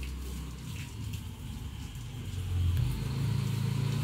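A low, steady machine hum that gets louder a little past halfway through, with a faint hiss of a garden hose spraying water behind it.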